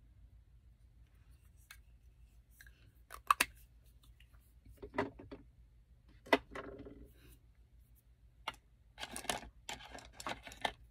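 Makeup products and tools being handled: sharp clicks, one about three seconds in, one about six seconds in and one about eight and a half seconds in, then a run of clattering and rustling near the end.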